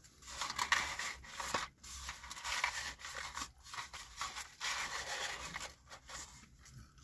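Cardboard McDonald's fry carton rustling and scraping in the hand as fries are pulled out of it, in irregular bursts with short pauses.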